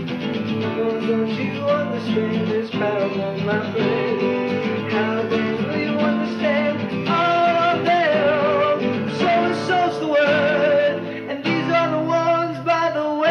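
A song with guitar; a wavering sung melody comes up from about seven seconds in.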